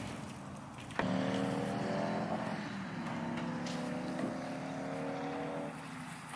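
An engine running steadily for about five seconds. It starts suddenly about a second in, shifts slightly in pitch and fades near the end.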